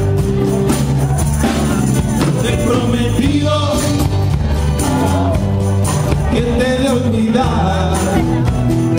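Live band playing a Latin dance song, with guitars, bass guitar and drums and a melody line over a steady bass.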